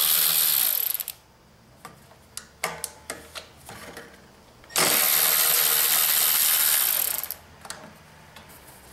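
A power tool runs briefly, stops just under a second in, then runs again for about two and a half seconds from about five seconds in, with small metal clicks in between, as the carburetor mounting bolts are backed out.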